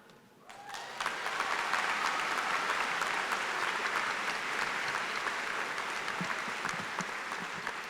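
Audience applauding. It starts about half a second in, builds within a second to a steady level and eases off slightly near the end.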